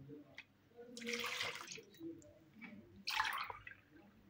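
Milk being poured, splashing into a mug and into a bowl of cake batter in two pours, about a second in and about three seconds in.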